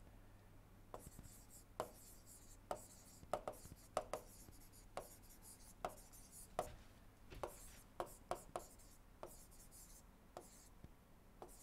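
Faint handwriting with a stylus on a tablet screen: a sharp tick at each pen stroke, irregular, about one to two a second, with a light scratchy hiss between.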